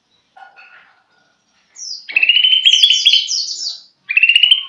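Caged male green leafbird (cucak ijo) singing: two bursts of rapid, chattering trilled phrases, the first starting about two seconds in after a short slurred note, the second near the end.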